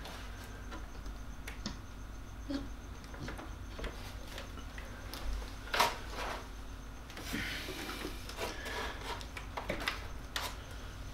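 Handling noise as statue pieces are fitted onto the base: scattered light clicks, taps and rubbing, with one sharper knock about six seconds in.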